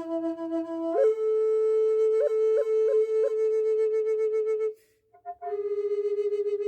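Native American style flute of red oak with a manzanita birdie block, tuned to F minor at 432 Hz, playing slow held notes: a low note that steps up to a higher one about a second in, ornamented with four quick grace-note flicks. A short breath break comes near the end before the higher note sounds again.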